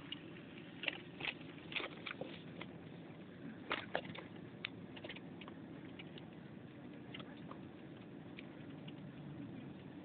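Steady low road and engine hum heard inside a moving car, with irregular light clicks and taps over it, most of them in the first half.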